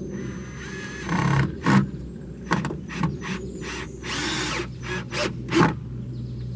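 Cordless drill driving a 2-inch screw through a metal joist bracket into a wooden end joist, in a string of short bursts with one longer run about four seconds in.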